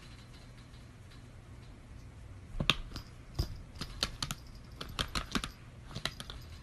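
Laptop keyboard clicking: irregular key taps in quick runs, starting about two and a half seconds in.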